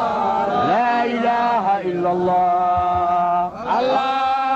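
A man chanting a Somali Islamic devotional song without instruments, drawing out long held notes with slides between them, with a brief break about three and a half seconds in.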